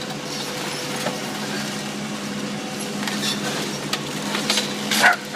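A steady low engine-like hum with scattered faint cracks and crunches from the house being torn down; a dog starts barking right at the end.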